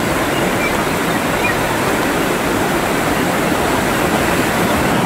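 Fast-flowing floodwater rushing, a loud, steady noise of moving water.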